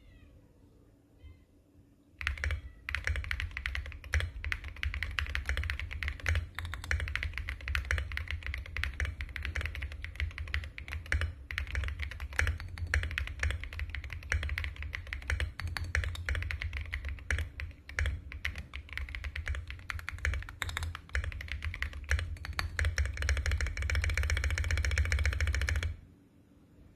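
Rapid typing on a custom-built mechanical keyboard, a dense stream of key clicks. It starts about two seconds in, grows faster and denser near the end, then stops suddenly.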